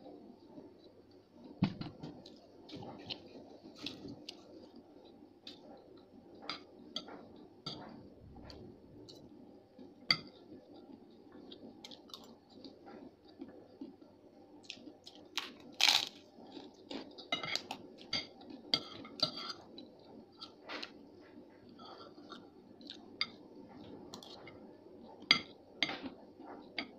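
Crunchy chewing and biting of a fried white kerupuk cracker and fried rice, in irregular sharp crunches, the loudest about two thirds of the way in, with occasional clinks of a metal spoon on the plate.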